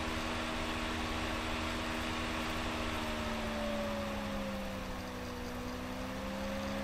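Steady motor hum over a constant hiss; the hum's pitch sinks slightly about halfway through and then holds.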